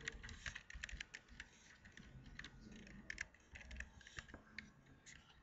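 Computer keyboard keys clicking as a word is typed: quick, irregular keystrokes, some in close runs.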